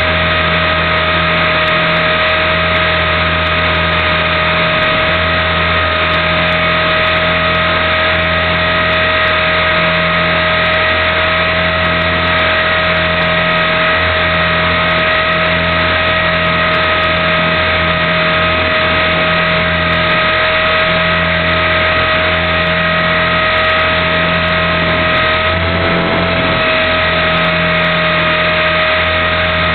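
Align T-Rex 450 Pro electric RC helicopter running at a steady speed: a constant high whine from the brushless motor and gears over a low rotor beat, with the pitch lifting slightly for a moment near the end.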